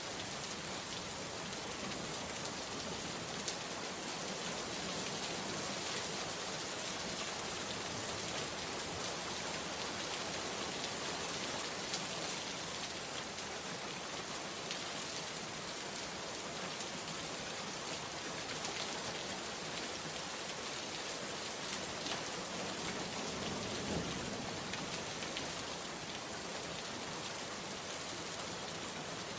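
Steady rain falling: an even hiss with a few louder drops ticking now and then.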